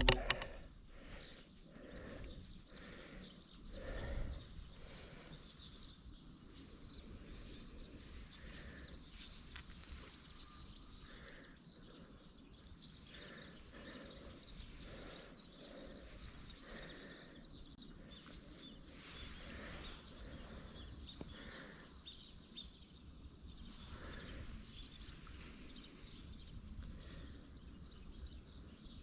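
Faint outdoor ambience with scattered high bird calls.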